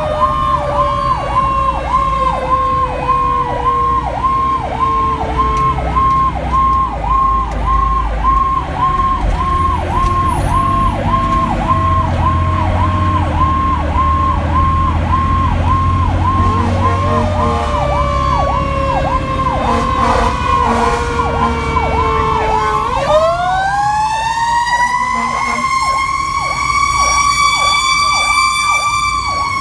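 Fire engine sirens heard from on board the moving truck: an electronic siren cycling rapidly at about two cycles a second, together with a mechanical siren whose pitch slowly winds down, then spins back up sharply about 23 seconds in and holds high. The truck's engine rumbles underneath.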